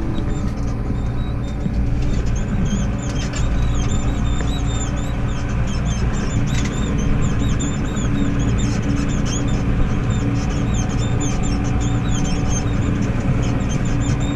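Farm tractor engine running steadily under way, with scattered light rattles over the top.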